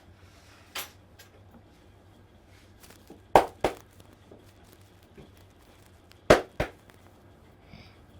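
Hands striking during a head massage. A light smack comes about a second in, then two loud double smacks, the strokes of each pair a quarter-second apart and the pairs about three seconds apart.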